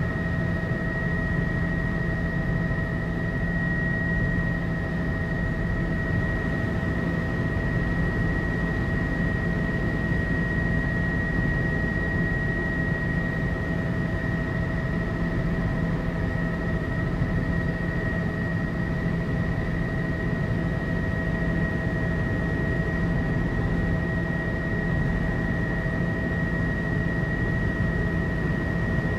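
Tour helicopter in cruise flight, heard from inside the cabin: a steady engine and rotor drone with a constant high-pitched whine over it.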